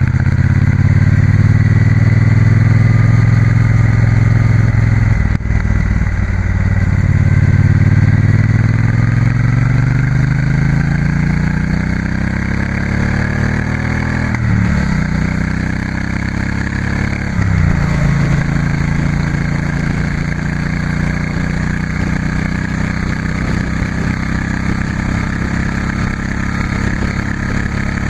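2016 Triumph Bonneville T120's 1200 cc parallel-twin engine running through its standard silencers while riding: it pulls hard, changes gear about five seconds in and picks up again, then slows through the middle with two quick jumps in engine speed, and ends cruising at a steady speed.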